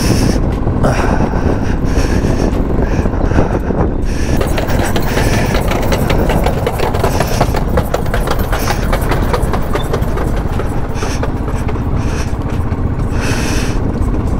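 Motorcycle riding slowly, its engine running under a heavy, steady low rumble. About four seconds in, a dense, fast crackling joins it and keeps on.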